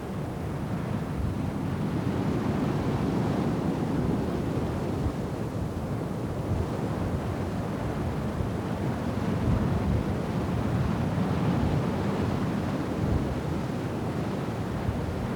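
Storm wind buffeting the microphone over the steady noise of rough sea and surf, with the level swelling and easing.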